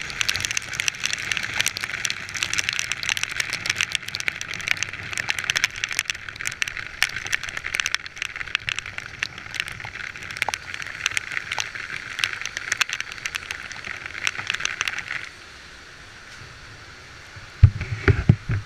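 Heavy rain striking the camera in dense, rapid clicks over a faint low rumble. The rain sound cuts off abruptly about 15 seconds in, leaving a quiet steady hiss, and a couple of loud thumps follow near the end.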